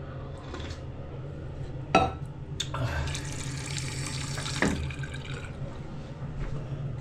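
Water running from a newly replaced faucet for about two seconds, testing the flow. A sharp clunk comes just before the water starts and another as it stops.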